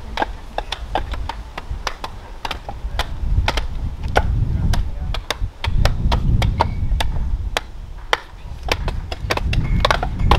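Several axes chopping and splitting green-wood logs on chopping stumps at once: a fast, irregular run of sharp knocks, overlapping in places.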